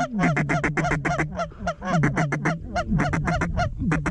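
Hand-blown waterfowl calls, worked fast to draw circling mallards in: quick runs of loud, short, reedy notes over a low drone, with brief breaks between the runs.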